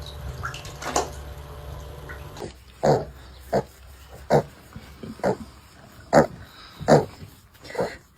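Short, low animal calls repeated about once a second, around seven times, starting about three seconds in. Before them there is a low hum with a few faint clicks.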